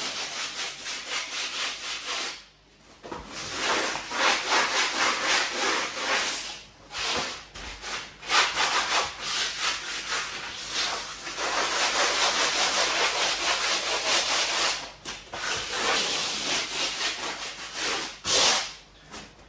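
Coarse 40-grit sandpaper rubbed by hand over the cured flocoat top coat of a pond wall in quick scratchy back-and-forth strokes, pausing briefly a few times. The scuffing keys the surface for a fresh coat.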